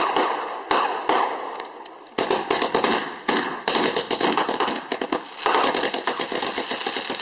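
Fireworks going off: a run of sharp bangs and pops at irregular intervals that thickens into a dense, continuous crackle about five and a half seconds in.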